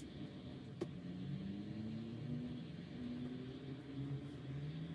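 A steady low background hum with slowly drifting tones, and a single sharp click just under a second in from flat tweezers picking broken glass and tape off an iPad's frame edge.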